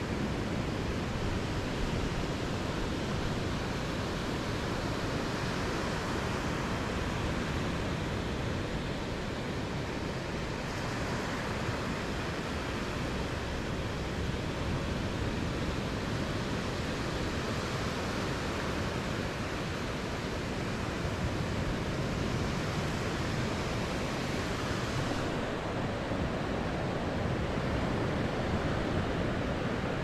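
Steady rush of ocean surf breaking on the beach, mixed with wind buffeting the microphone.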